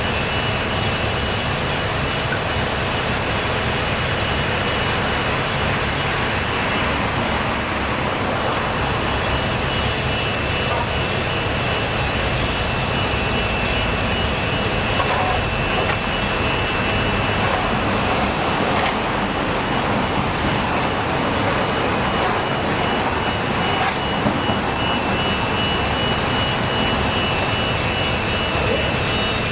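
Steady, loud motor-vehicle noise with no breaks, carrying a thin constant high tone.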